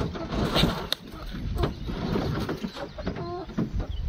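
Broiler chickens calling from a crate, with a short pitched call about three seconds in. A few sharp knocks and clicks come earlier.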